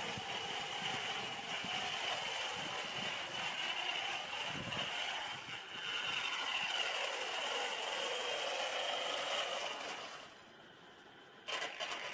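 A steady high-pitched electric motor whine over a hiss. It fades out about ten seconds in and leaves a brief near-silence. Near the end, a closer, rapidly clicking rattle of an RC car's brushless motor and gears starts abruptly.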